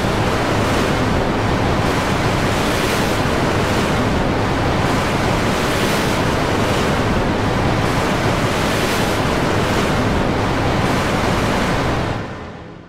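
Dense, steady wall of noise from hundreds of video clips playing over one another at once in a YTPMV scan, fading out near the end.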